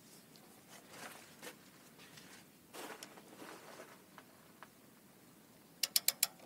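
Hand tools being handled on a backhoe's hydraulic cylinder: faint scraping and rustling, then a quick run of four sharp clicks about 6 s in.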